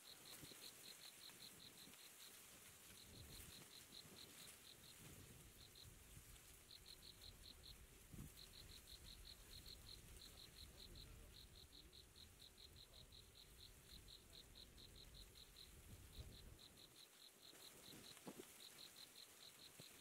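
Faint insect chirping: trains of rapid, even high-pitched ticks, about eight a second, in bouts of one to two seconds with short gaps, over a low rumble.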